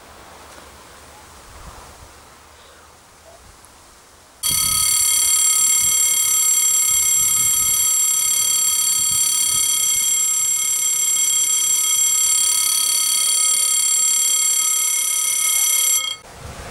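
Level-crossing warning ringer sounding a loud, steady, high-pitched electronic tone. It starts suddenly about four and a half seconds in and cuts off abruptly as the barrier comes down, shortly before the end. This warns that a train is approaching. Before it there is only a faint outdoor hiss, like wind.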